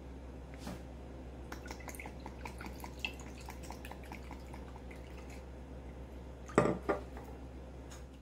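Soy sauce pouring from a bottle into a plastic measuring cup, a quick run of small dripping plops, about five a second, in the first half. Near the end, one louder splash and clink as the cup is emptied into a glass baking dish. A steady low hum runs underneath.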